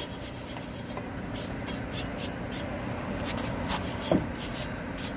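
Plastic-bristle brush scrubbing worn brake-lining dust off the shoes and backing plate of a car's rear drum brake, in a run of short, irregular scratchy strokes.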